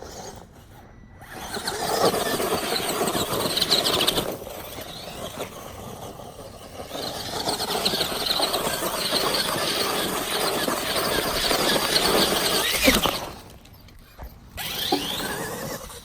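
Radio-controlled monster truck driven in two runs, its motor and tyres loud for about two seconds and then for about five seconds, with a sharp knock near the end of the second run.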